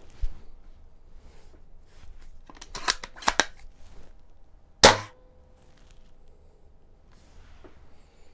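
Spring-powered airsoft bolt-action sniper rifle (Novritsch SSG10) being readied with a quick run of clicks, then fired once: a single sharp crack about five seconds in, the loudest sound, with a faint ringing tone trailing on after it.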